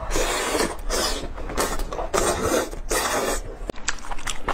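Close-miked eating of spicy skewered meat: chewing and mouth noise in about five noisy bursts of roughly half a second each, followed by a few short sharp clicks near the end.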